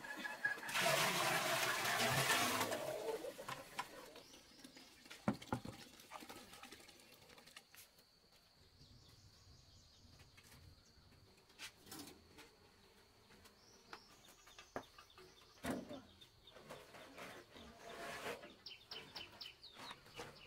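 Water poured from a plastic bucket into a large metal pot: a loud gushing splash lasting about two seconds near the start. Afterwards it is much quieter, with a few scattered knocks and birds calling.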